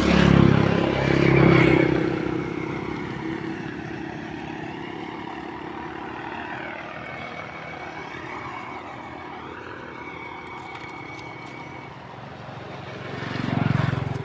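Engine of a motor vehicle passing on the road, loud for the first couple of seconds. A softer steady hum carries on after it, then a second swell comes near the end.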